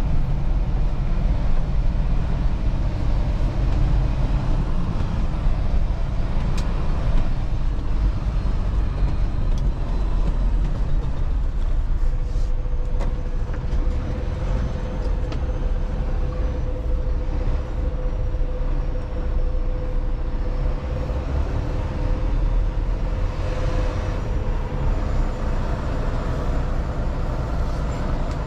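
Semi truck running down the road, heard from inside the cab: a steady, heavy low rumble of engine and road noise, with a faint steady whine joining about halfway through.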